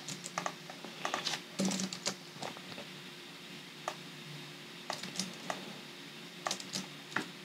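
Computer keyboard keystrokes, faint and irregular, in short runs with pauses between them.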